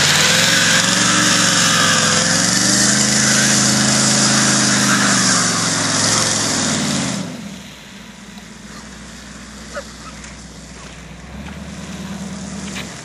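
1973 Buick Apollo's engine revved hard in a burnout, its pitch climbing and then falling, over the hiss of a rear tire spinning on wet pavement. With no posi rear end, only one tire spins. About seven seconds in the revs drop off and the engine settles to a low idle.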